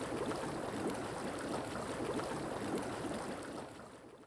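Bubbling, rushing water, steady, fading out near the end.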